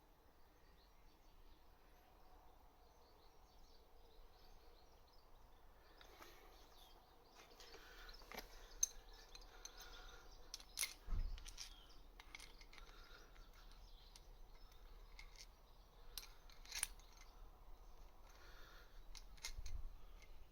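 Faint, scattered metallic clicks and clinks of hand tools being worked on a seized alternator pulley, with a few louder knocks in the second half.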